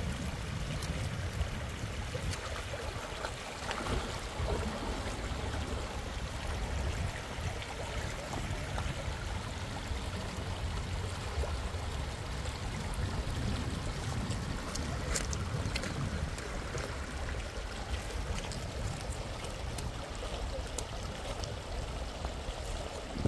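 Steady rushing noise, strongest and most uneven in the low end, with a few faint clicks.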